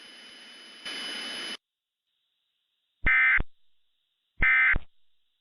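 Emergency Alert System end-of-message data bursts: two short, harsh buzzy squawks about 1.3 s apart, after a second and a half of hiss that cuts off suddenly.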